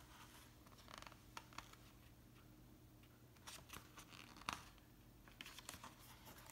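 Near silence with faint rustles and small taps from a picture book being handled. A paper page is turned near the end.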